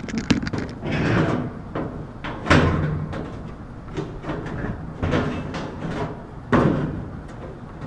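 Sheet-metal service panel of an air conditioner condensing unit being handled and knocked into place: scraping and rustling with a few sharp metal knocks, the loudest about two and a half seconds in.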